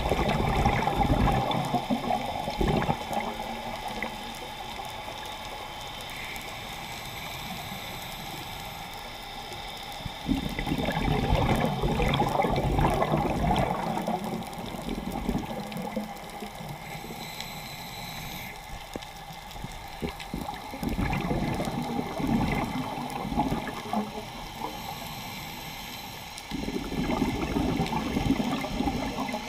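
Scuba diver's regulator heard underwater: exhaled air bubbles gurgle out in four surges of a few seconds each, several seconds apart, over a steadier, quieter wash of water between breaths.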